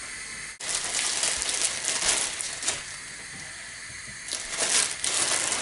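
Water running into a plastic measuring jug in two spells, the second near the end, with some light crackly handling noise.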